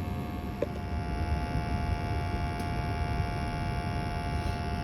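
21-year-old gas furnace firing, a steady low hum with a thin high whine. There is a short click about half a second in.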